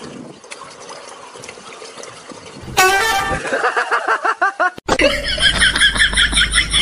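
Faint hiss, then about three seconds in a loud, wavering horn-like call for about two seconds, then, after a sudden cut, a golden retriever howling with its head raised: a rapid run of pitched pulses over a low rumble.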